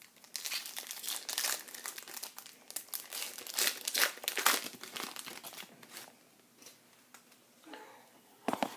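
Wrapper of a baseball card pack crinkling and tearing as it is handled and torn open, in dense irregular crackles that die down about six seconds in.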